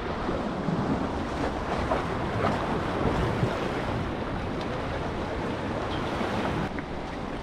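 Sea waves washing against the boulders of a rock jetty, with wind buffeting the microphone: a steady rushing noise.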